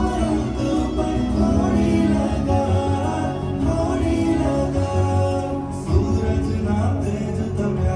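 Garba song: a sung melody over instrumental accompaniment.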